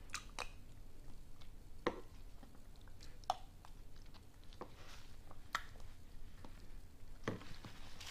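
A person eating soft tofu soup with a plastic spoon: quiet chewing, with a few scattered small clicks and mouth smacks.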